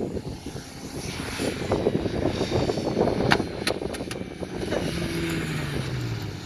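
Jeep Wrangler TJ engine running hard while driving on sand, with a steady rush of noise. There are a few sharp knocks a little past halfway, and near the end the engine note falls as it comes off the throttle.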